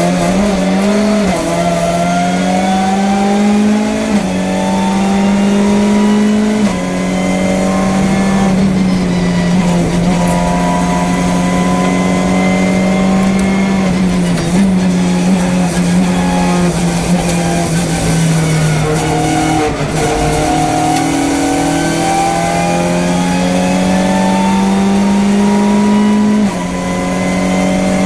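Hyundai i30 N TCR race car's 2.0-litre turbocharged four-cylinder engine at high revs under hard acceleration, heard from inside the cockpit. Its pitch climbs through each gear and drops sharply at the upshifts, several times in the first seven seconds and again near the end, with a short lift and dip in revs about two-thirds of the way through.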